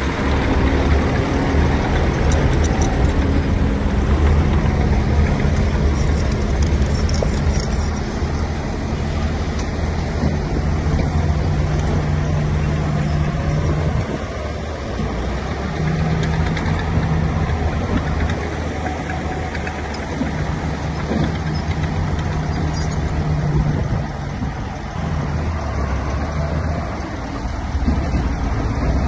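Diesel engine of a heavy earthmoving machine running continuously, its pitch rising and falling a few times as the load changes.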